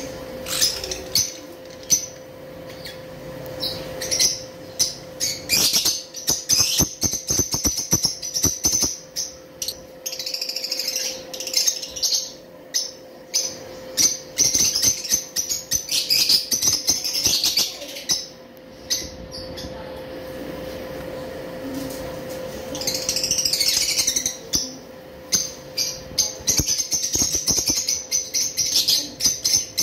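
Small parrots chirping and chattering, high and rapid, in spells of a few seconds with short gaps, mixed with sharp clicks, over a steady faint hum.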